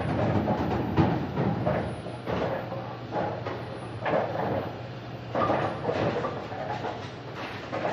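Objects being moved and handled: irregular knocks, clatters and scrapes over a steady low rumble, with a sharp knock about a second in. The rumble fades after about five seconds.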